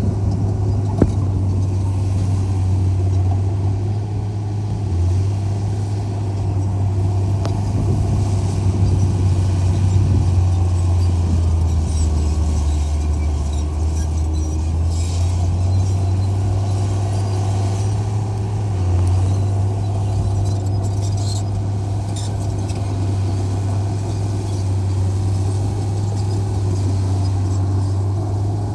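Large diesel engine of earth-moving machinery running steadily: a low drone that shifts slightly in pitch now and then, with a sharp click about a second in.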